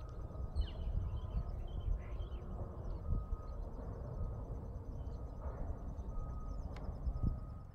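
Outdoor ambience: wind rumbling on the microphone, with a few short bird chirps in the first couple of seconds and a faint, fast insect trill behind.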